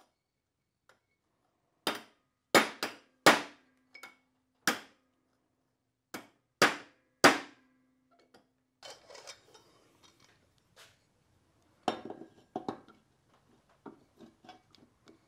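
A mallet striking a bearing on a Porsche differential carrier: about nine sharp separate blows, a couple of them leaving the metal part briefly ringing. After that come softer clatter and knocks as the metal parts are handled on the steel table.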